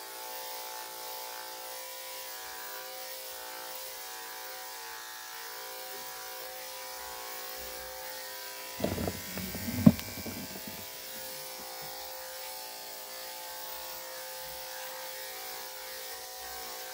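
Corded electric dog-grooming clipper running with a steady hum while it cuts the puppy's coat. A brief thump sounds about nine to ten seconds in.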